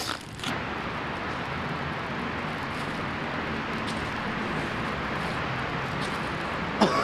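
Steady wash of distant city traffic noise, with a short sharp sound near the end.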